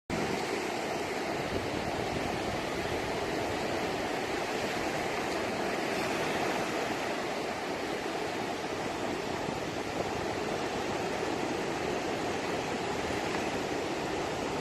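Sea surf: a steady, even rush of waves on the shore.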